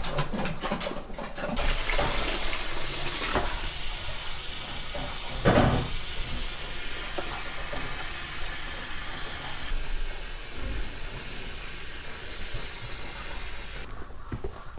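Water running from a garden hose into a pig's water tub: a steady hiss that starts about a second and a half in and stops shortly before the end, with one dull knock about five seconds in.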